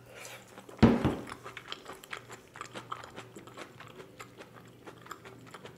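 Close-miked eating sounds of a person chewing a mouthful of teriyaki yaki udon. A sharp, louder mouth sound comes about a second in, then many small irregular clicks of chewing, the kind of eating sound mukbang viewers like to hear.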